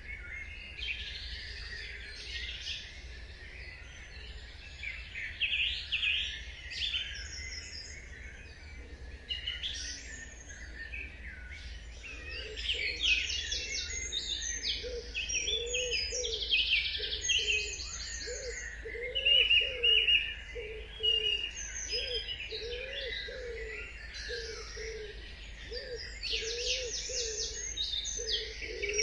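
Dawn chorus: many songbirds singing and chirping at once, high trills and whistles overlapping. From about twelve seconds in, a low call repeats over and over beneath them.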